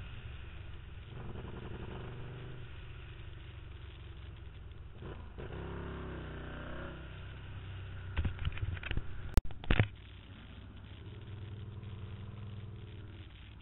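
Can-Am Spyder roadster's engine running at low speed, with the throttle opened and eased a few times so the pitch rises and falls. About eight to ten seconds in there is a short cluster of sharp loud knocks.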